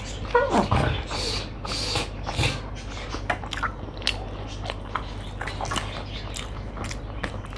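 Close-miked eating sounds: chewing and mouth clicks, with soft squishes as fingers mix rice and fried vegetables on a plate.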